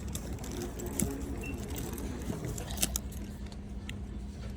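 Light jingling and handling noise with two sharp clicks, about one second and three seconds in, over a steady low hum of the store.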